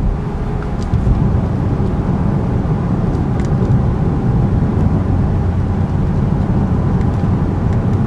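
Steady low road rumble inside the cabin of a 2011 Cadillac CTS-V coupe cruising at about 50 mph on cruise control: tyre, road and engine noise with no clunks or rattles.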